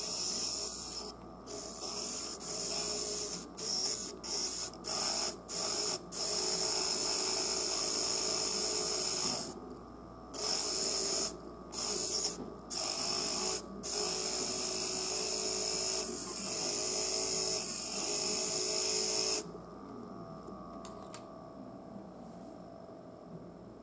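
Armature of a disassembled Maxon DC motor spinning fast on 12 volts, fed through thin copper reeds held against its commutator as makeshift brushes. It gives a high-pitched whine that cuts in and out about a dozen times as the reeds make and break contact, with a few longer runs, then stops for good a few seconds before the end.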